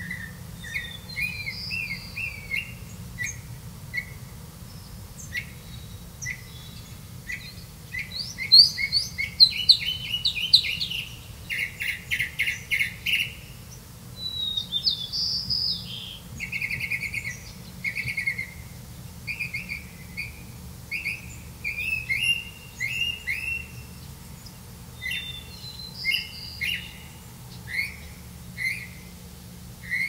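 Small birds chirping: many short, high chirps in quick runs, with a denser, louder burst of chirping about a third of the way in, over a low steady hum.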